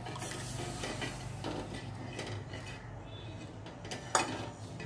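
Long steel spoon stirring buttermilk in an aluminium pot, scraping and clinking against the pot's side a few times, with the sharpest clink near the end. The buttermilk is stirred continuously so that it does not split as it heats.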